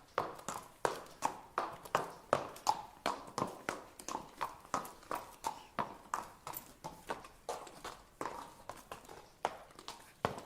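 Horse walking, its hooves clip-clopping in a steady rhythm of about two to three hoof strikes a second.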